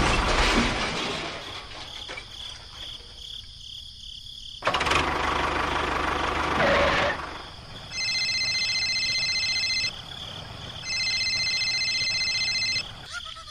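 A small vehicle engine starting and running in noisy bursts, followed by two long, steady horn beeps about a second apart.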